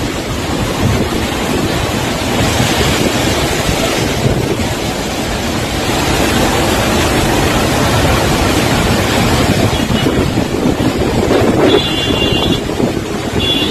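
Muddy floodwater torrent cascading down a steep hillside: a loud, steady rush of water, with wind buffeting the phone's microphone.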